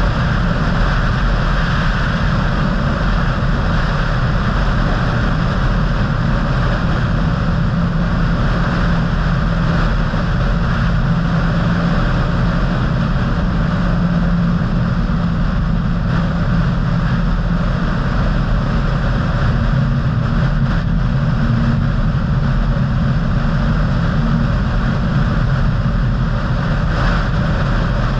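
Car driving at a steady speed: engine and road noise at an even level, with a steady low hum.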